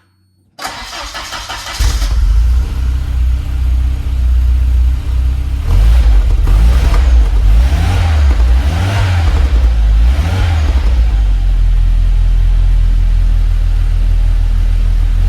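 Volvo 940 turbo's 2.3-litre four-cylinder turbo engine breathing through a new Simons aftermarket exhaust, cranked and catching after about a second, then idling loudly. It is revved up and back down three times partway through.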